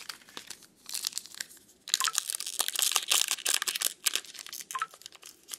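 Wrapper of a Heritage High Number baseball card pack crinkling and tearing as it is opened by hand, crackling louder and denser from about two seconds in.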